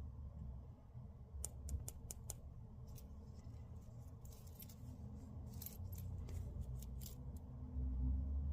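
A run of light, irregular clicks and small rattles from hard objects being handled, over a steady low rumble that grows louder near the end.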